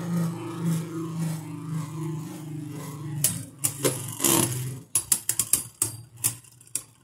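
Two Beyblade Burst spinning tops, one left-spin and one right-spin, spinning in a plastic stadium. A steady, pulsing whirr runs for about three seconds, then gives way to a run of sharp clacks as the tops collide and scrape, fading near the end.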